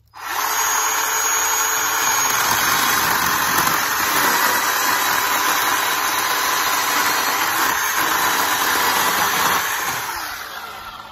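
Bauer 20-volt cordless chainsaw, its electric motor driving the chain through a firewood limb in one cut. It starts abruptly at full speed and dies away near the end.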